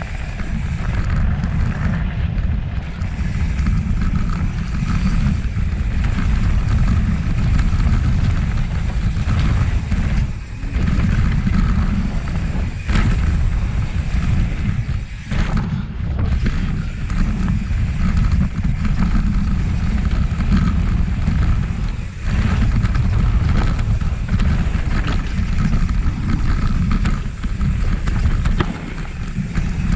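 Mountain bike riding down a dirt trail: a steady, loud rumble of wind buffeting the camera microphone mixed with tyre and frame noise, with a few brief dips.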